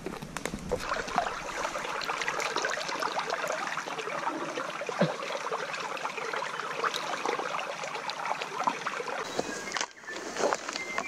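Small rocky stream running and trickling, with hands scooping and splashing in the water. The water sound cuts off suddenly near the end.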